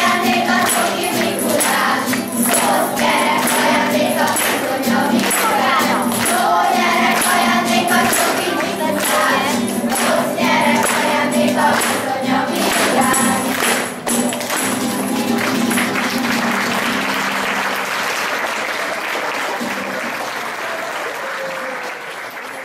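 Children's choir singing a song with guitar accompaniment and rhythmic hand-clapping along to the beat. About two-thirds of the way through, the singing ends and applause takes over, fading out near the end.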